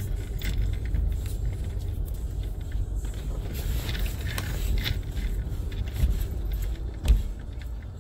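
Car rolling slowly over a rutted dirt road, heard inside the cabin: a steady low rumble of tyres and suspension with light crackling from the dirt surface, and a heavy thump near the end.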